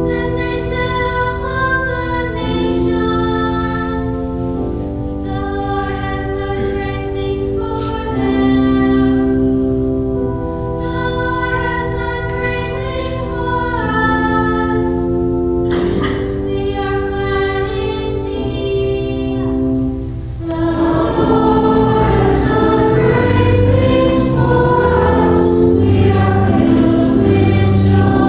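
Church hymn sung by a choir with organ accompaniment, held chords throughout. About twenty seconds in the music grows fuller and louder, with a moving bass line.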